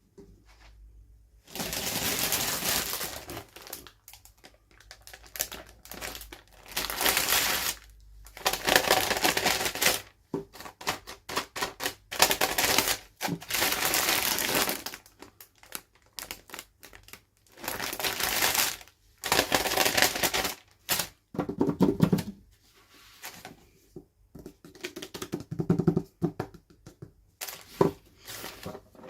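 Toy packaging being handled and opened by hand: repeated bursts of crinkling and rustling, each lasting a second or two, with small clicks and taps in between.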